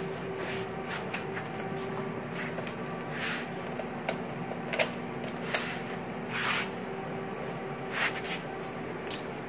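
Electric bicycle's rear hub motor spinning on its stock controller, a steady electric whine of several pitches, with scattered clicks and brief rustles of handling.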